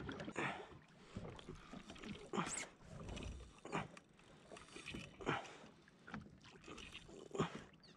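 Small waves lapping and slapping against the hull of a drifting jet ski, in irregular splashes every second or so.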